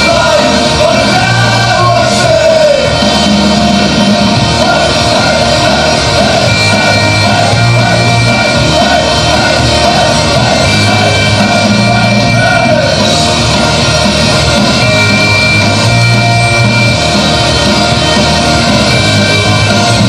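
Loud music with a singing voice over a bass line, rock in style, running steadily.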